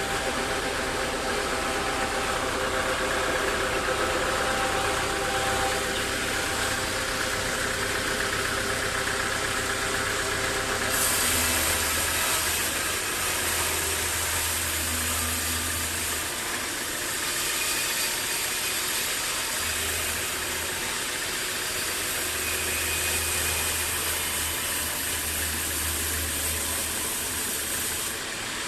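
Sawmill machinery running steadily with a low hum and held tones. A higher hiss joins about a third of the way in and stops shortly before the end.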